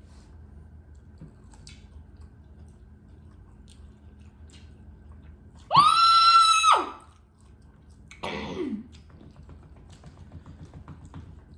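Chewing and crunching of crispy fried chicken tenders, with a loud high-pitched squeal about six seconds in that holds steady for about a second and then drops. A shorter cry falls in pitch around eight seconds in.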